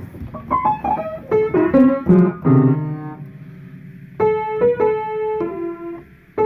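Upright piano played by hand: a quick run of notes stepping down, ending on a held low note, then a slower phrase of notes from about four seconds in. The piano is a little out of tune.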